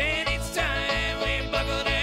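Live bluegrass string band of banjo, acoustic guitar, mandolin and upright bass playing an up-tempo tune, the bass keeping a steady beat of about four notes a second.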